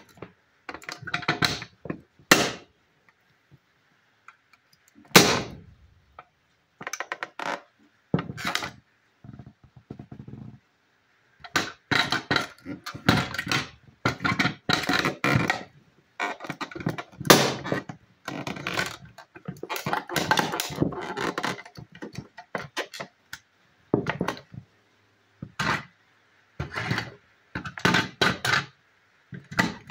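Football cleats stomping on and beside a toy school bus: irregular thuds and knocks, with the toy clattering under the hits. Single stomps come with pauses between them in the first part, then a long run of rapid, closely spaced stomps in the middle.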